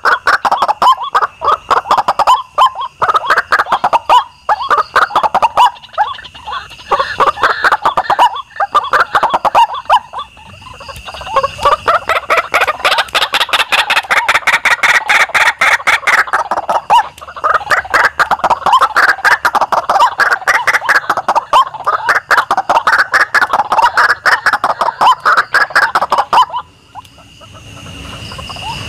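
White-breasted waterhens calling: long bouts of loud, rapid, repeated croaking notes, with a short lull near the end.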